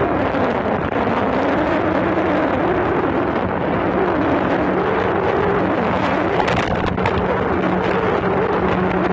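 Speedboat engine running under way, its pitch wavering up and down over a steady hum, with wind buffeting the microphone.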